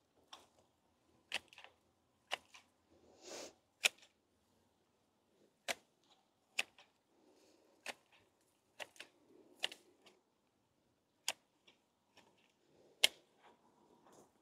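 Hand hedge shears snipping a ligustrum shrub: about a dozen sharp clicks of the blades closing on twigs, roughly one a second at uneven intervals, with soft rustling of the foliage between cuts.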